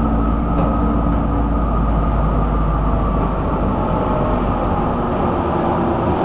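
Interior running noise of a Matra VAL 256 rubber-tyred metro car in motion: a steady low rumble with a faint steady whine above it. The deepest part of the rumble eases off about five seconds in.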